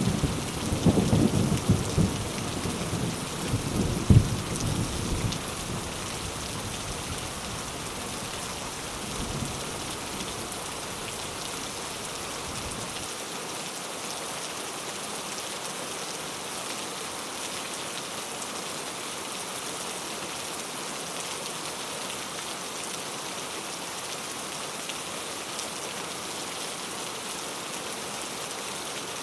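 Steady rain falling, with a low rolling rumble of thunder that dies away in the first five or six seconds, leaving the rain alone.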